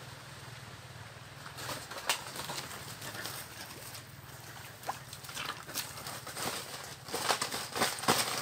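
Footsteps crunching and snapping dry palm fronds and leaf litter: irregular crackles that start about a second and a half in and grow denser near the end.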